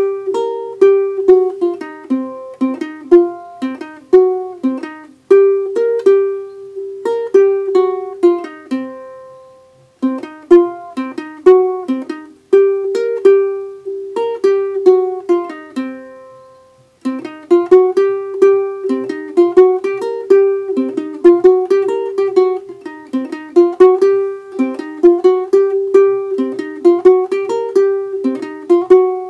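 Instrumental music: a plucked string instrument playing a repeating melodic figure of short, decaying notes, twice letting the notes ring out and fade before starting again.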